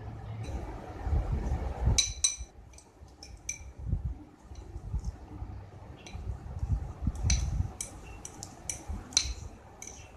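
Metal fork clinking and scraping against a ceramic bowl while mashing a boiled egg, in irregular clusters of sharp ringing taps from about two seconds in, with dull low thuds of the fork pressing through the egg.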